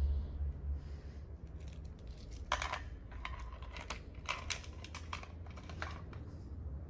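Motorcycle ignition key being worked in its switch, with the other keys on the ring clinking against it: a cluster of light metallic clicks and jingles lasting about three and a half seconds, starting a couple of seconds in. The ignition is switched on without the engine being started.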